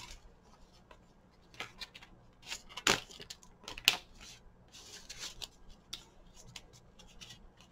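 Paper and card being handled and rustled as pieces are slid out of a clear plastic sleeve and laid down, with light taps and clicks, the sharpest about three and four seconds in.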